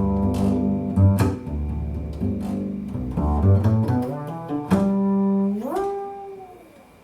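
Double bass playing a run of notes with sharp attacks. Near the end one note slides upward, is held, and fades away.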